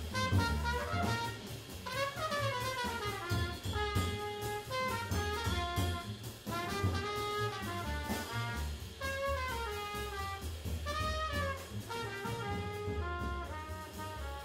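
Jazz quintet playing: saxophone, trumpet and trombone playing fast runs together that rise and fall, over double bass and drum kit.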